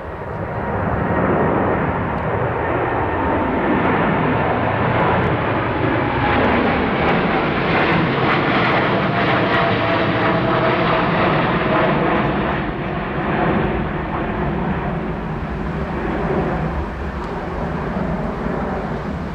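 Jet airliner's engines passing close by, the noise swelling about a second in and staying loud, with its pitch shifting as the aircraft goes past.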